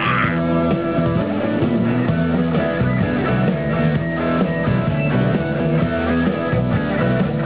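Live rock band playing an instrumental passage of a blues-rock song, with electric guitars over drums and no singing.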